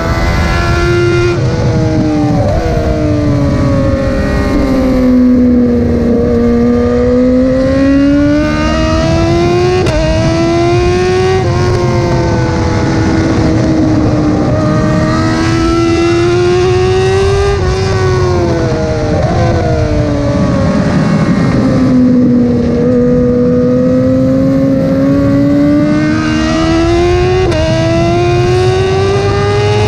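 Motorcycle engine running hard, its pitch falling in long sweeps and climbing again as the bike slows into bends and accelerates out, with sudden steps in pitch at several points from gear changes. A dense low rumble of wind and road noise runs underneath.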